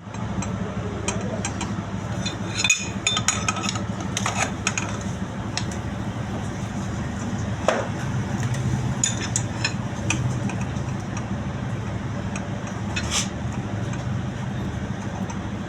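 A machine running steadily with a low hum, with scattered metallic clinks and taps on metal over it.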